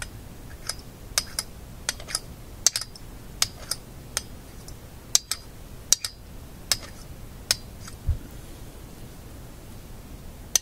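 Sharp metallic clicks, about every half second, as a horseshoe magnet snaps onto and is stroked along a small shadow-meter magnet held in locking pliers to re-magnetize it, with one dull thump about eight seconds in and a pause near the end.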